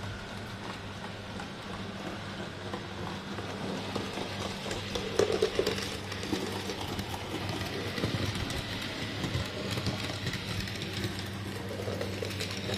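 OO gauge model trains running on the layout track: a steady low motor hum with the wheels rattling over the rails, and a brief louder rattle about five seconds in.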